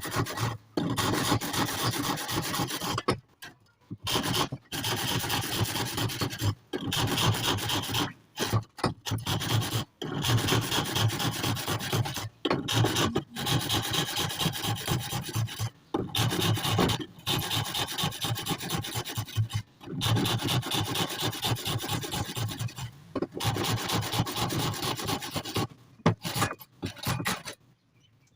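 Hand file rasping in quick repeated strokes, in runs of a few seconds broken by short pauses.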